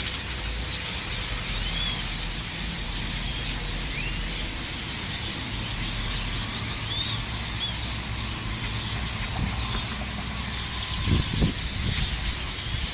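A large flock of birds packed in trees, many squawking and chirping at once in a dense, continuous din, over a low steady rumble.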